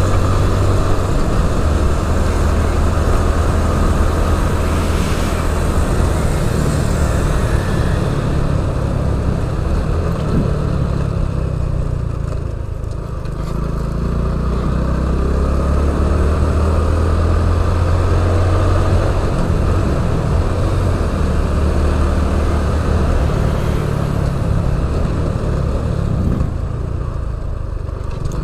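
Wind rumbling on the camera's microphone over the steady running of a small scooter's engine while riding. The noise eases briefly about halfway through and again near the end.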